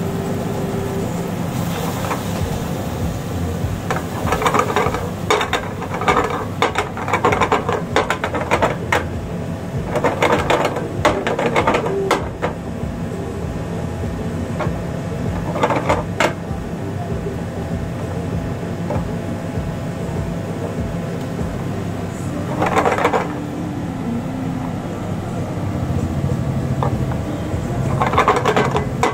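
A spatula stirring and scraping rice in a steel frying pan over a gas burner, in several bursts of quick scrapes and knocks against the pan, over a steady low hum.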